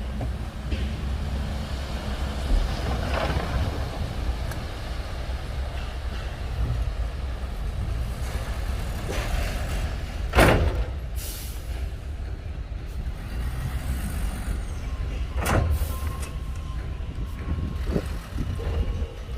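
Heavy diesel earthmoving machinery running steadily with a low rumble, broken by a few short sharp noises, the loudest about ten seconds in.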